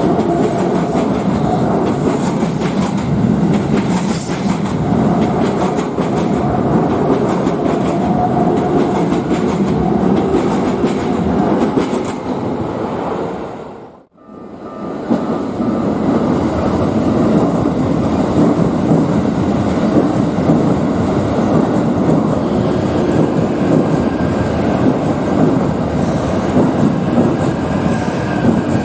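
Keikyu electric trains passing at close range: a continuous loud rumble of wheels clattering on the rails. The sound fades out about halfway through and cuts back in on another train passing.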